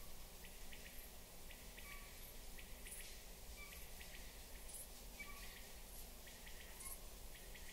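Faint nature soundscape: a steady low rumble with short chirps recurring every second or so and scattered light ticks.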